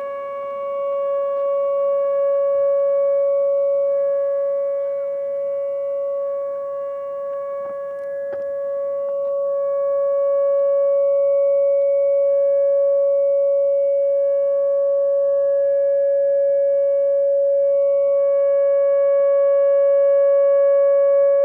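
Whelen WPS-4004 electronic dam-failure warning siren sounding its steady alert tone, one loud unbroken pitch, during a monthly test of the warning system.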